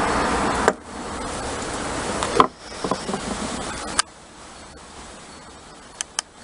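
Small clicks and taps of a tiny screw and a size 0 screwdriver being handled on a laptop SSD caddy, with three sharp clicks near the end, over a steady hiss that drops away in steps.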